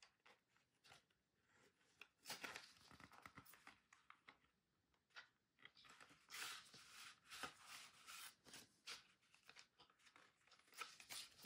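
Faint rustling and scraping of paper and cardboard in short, uneven strokes as an open CD album digipack is handled and a photo insert is slid out of its pocket.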